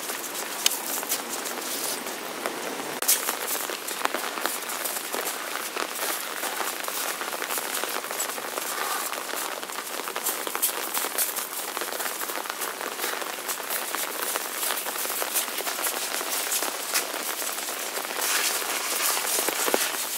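Steady rain falling, an even hiss dotted with many small ticks of drops landing close by.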